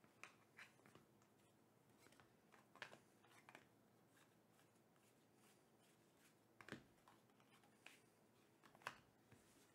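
Near silence: room tone with about seven faint, scattered clicks and taps.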